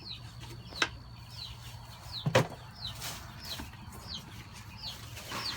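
Chicks peeping over and over, short high notes that slide downward, with a sharp knock just over two seconds in.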